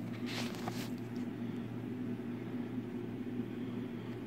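Steady low electrical or mechanical hum over a light hiss, with a brief rustle about half a second in and a couple of faint ticks.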